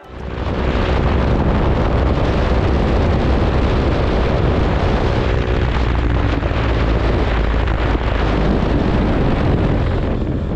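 Wind rushing and buffeting over a motorcycle-mounted camera's microphone while riding a KTM RC 200, with the bike's single-cylinder engine running steadily underneath. The sound fades out near the end.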